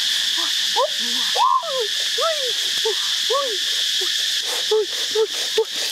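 Outdoor wildlife chorus: a steady high insect drone with a string of short hooting animal calls that rise and fall in pitch, about two a second and quickening near the end.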